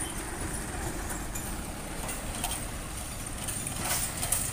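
Light box truck's engine running as it drives past on the road, a steady low rumble, with a few short clicks near the end.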